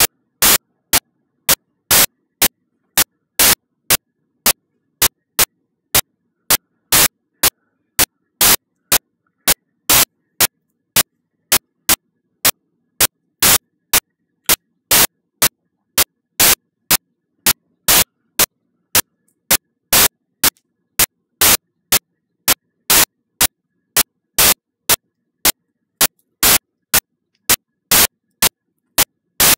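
Short, loud bursts of static repeating at an even pace of about two a second, with near silence between them. This is a digital glitch in the recording's audio.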